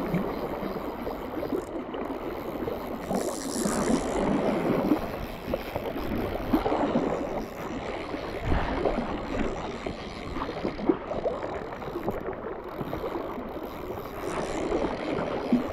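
Fast, shallow river water rushing and gurgling around wading legs, with gusts of wind on the microphone.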